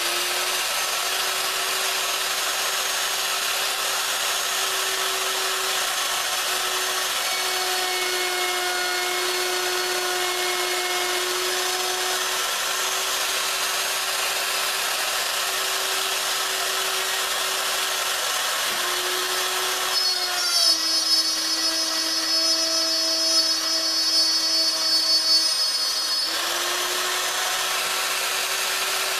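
Plunge router running with a steady high whine. About twenty seconds in the bit plunges into a pine board: the motor's pitch drops under the load and louder, uneven cutting noise rises for about six seconds. Then it spins freely again at its first pitch.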